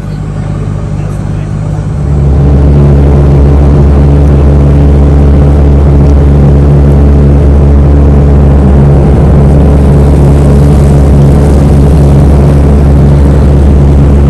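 Boat engine running steadily with a loud, low hum, likely the motorized raft that crosses to Tom Sawyer Island. It gets louder about two seconds in, as if it is throttled up or the microphone comes close to it, then holds steady.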